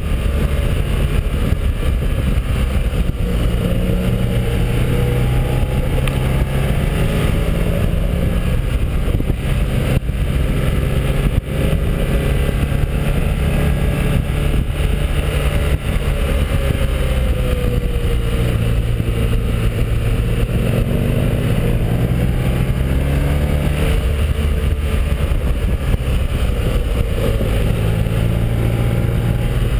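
BMW R1200R's flat-twin boxer engine running under way, its pitch rising and falling with the throttle through the bends, under a steady rush of wind on the microphone.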